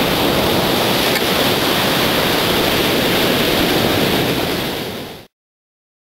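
Sea surf washing onto a beach, a steady rush of waves that fades out about five seconds in and then stops.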